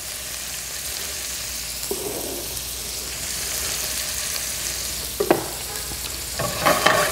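Green beans and chopped jalapeño sizzling in butter in a stainless steel sauté pan, a steady high hiss. A short knock about five seconds in and a clatter near the end.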